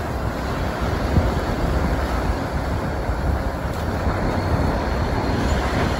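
Steady road and engine rumble of a moving vehicle, heard from on board.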